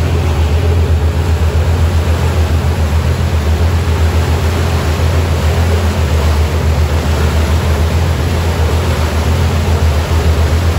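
Engine of a boat under way, running steadily with a low drone and a faint pulsing beat, over the rush of its churning wake.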